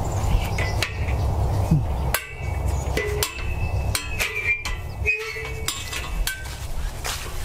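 Outdoor wind rumble on the microphone with scattered clicks and knocks from handling a handheld camera. A few short, high-pitched calls come through about two to six seconds in.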